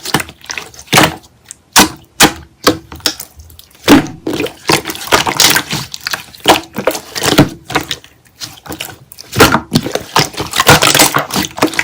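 Slime being squished and poked by hand: irregular sticky clicks and wet little pops, several a second.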